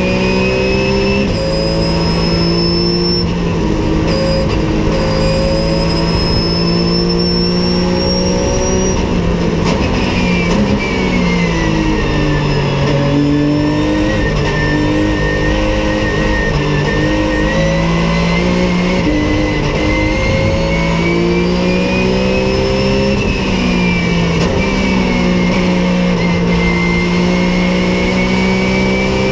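Porsche 911 GT3 Cup race car's flat-six engine, heard from inside the cockpit at racing speed. The revs climb and drop with quick upshifts, fall through braking and downshifts about ten seconds in, then climb again through the gears. A high whine follows the revs.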